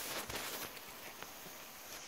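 Heavy rain falling: a steady hiss with scattered small taps of drops, a little louder in the first half second.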